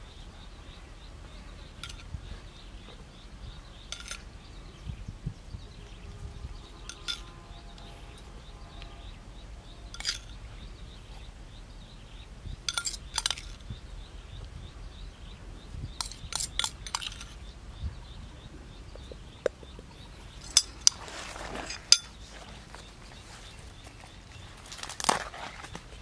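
Scattered light clinks and taps of a small ceramic bowl as sauce and chopped herbs are added to a chicken wrapped in lotus leaves, with rustling of the lotus leaves being handled, loudest about three-quarters of the way in and near the end.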